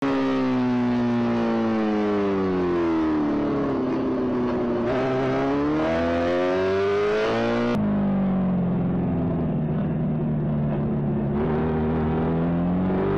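Sport motorcycle engine running under a rider's throttle on a winding road. Its pitch falls over the first few seconds, then climbs as the bike accelerates. About eight seconds in the sound changes abruptly to a lower, steady engine note that rises again near the end.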